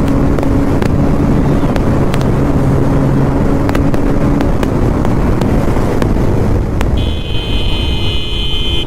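Motorcycle running at steady road speed with heavy wind noise on the rider's microphone. The engine's steady hum fades about halfway through, and a vehicle horn sounds for about two seconds near the end.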